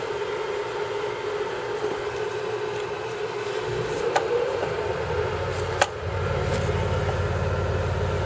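Enco 7" x 10" variable-speed mini bench lathe running with a steady whine. Two sharp clicks come a little past the middle, and a deeper steady hum sets in over the second half.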